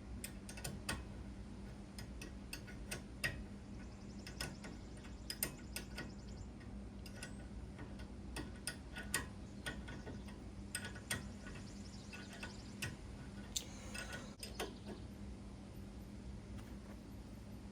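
Scattered sharp metallic clicks and clinks of a wrench being worked onto a nut on the brakes, coming irregularly, sometimes in quick pairs. A steady low hum runs underneath.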